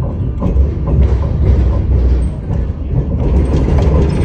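Alstom Citadis light rail tram running on street track, heard from inside the car: a steady low rumble of wheels on rail, with a few light clicks and rattles.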